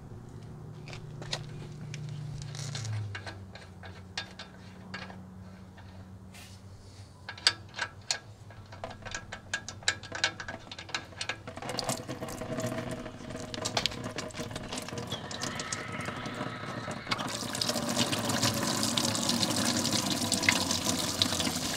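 Diluted vinegar flush draining from a tractor radiator's drain and splashing onto the metal frame and ground. It starts as scattered drips and builds into a steady splashing stream, louder near the end.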